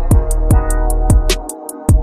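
Background music with a steady, fast beat over a deep bass; the bass drops out briefly near the end.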